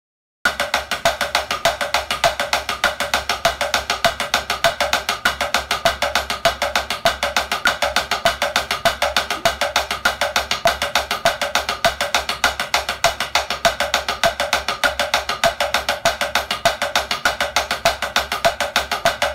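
Drumsticks playing a double stroke roll on a drum practice pad: two strokes with each hand in turn (RRLLRRLL), a dense, even stream of sharp taps starting about half a second in and running without a break until it stops at the very end.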